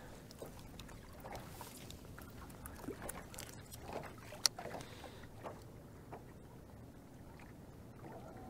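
Quiet on-the-water sound around a small fishing boat: faint water lapping against the hull, with scattered small clicks and taps of fishing gear being handled. The sharpest click comes about four and a half seconds in.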